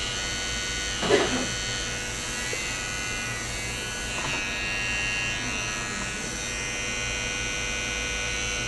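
Electric hair clippers running with a steady buzz while they trim the front hairline. A brief louder sound comes about a second in.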